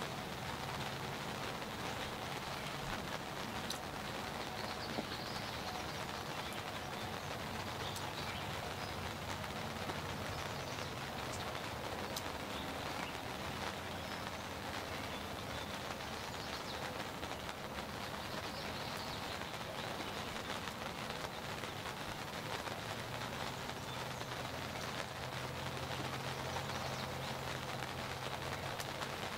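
Light rain pattering steadily on the fabric roof of a hunting ground blind, with scattered single drips.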